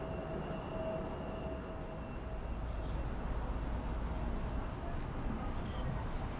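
Steady low rumble of airport background noise, with a faint whine that fades out about two seconds in.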